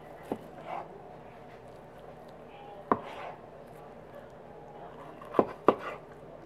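Kitchen knife slicing through a cooked beef tongue on a plastic cutting board. The blade knocks on the board four times: once just after the start, once about three seconds in, and twice close together near the end.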